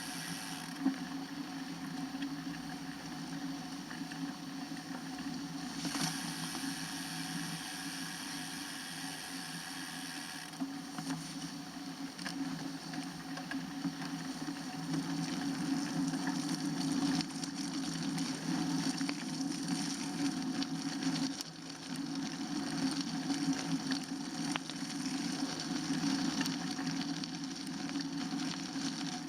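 Steady rolling noise from a bicycle on the road, a low rumble with hiss. A thin high whine comes in about six seconds in and stops about four seconds later.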